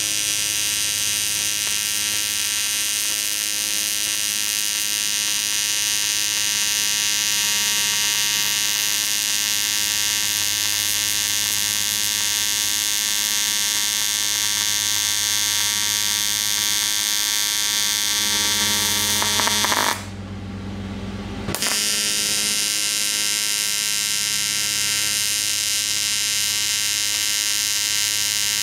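AC TIG welding arc on aluminum: a steady electric buzz made of many even tones. The buzz stops about twenty seconds in and starts again a second and a half later as the arc is struck anew.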